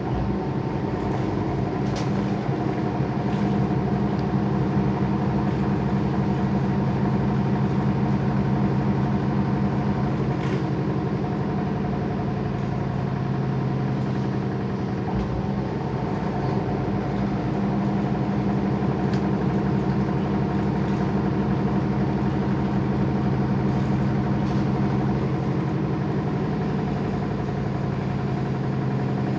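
Washing machine running with a steady motor hum that swells and eases slightly a few times, with a few faint clicks.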